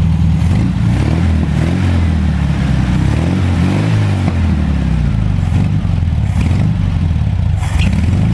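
1963 Volkswagen Beetle's air-cooled flat-four engine running, its revs rising and falling several times over the first few seconds as the throttle linkage is worked by hand, then holding steadier.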